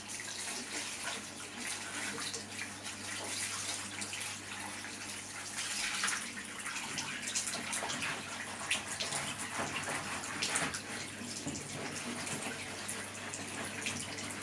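Hot water running into a bath while a wet cloth scrubs a piece of car trim, with irregular splashes and swishes over the steady flow. A steady low hum sits underneath.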